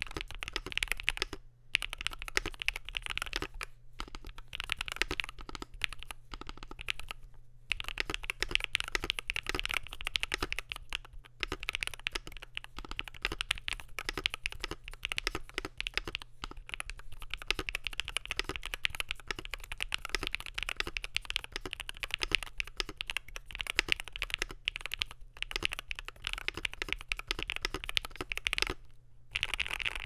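Fast continuous typing on an Iqunix EZ63 keyboard with Gateron Jade Pro magnetic Hall-effect switches, PBT Cherry-profile keycaps and an aluminium case: a dense run of keystroke clacks, broken by a few short pauses.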